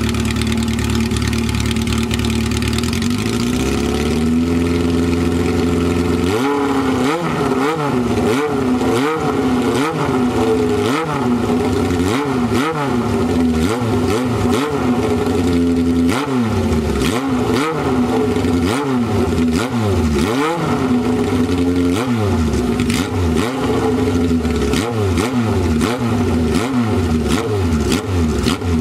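Honda CB750 Four's air-cooled inline-four idling through an aftermarket Misty exhaust, then revved repeatedly from about six seconds in, roughly once a second, each blip rising and falling in pitch. A racy exhaust note.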